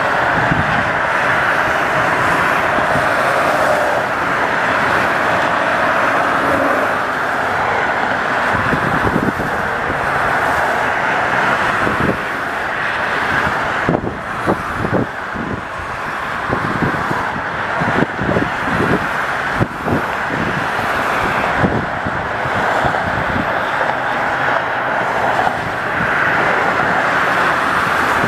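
Steady rush of multi-lane expressway traffic, cars passing continuously below, with a run of brief low thumps in the middle.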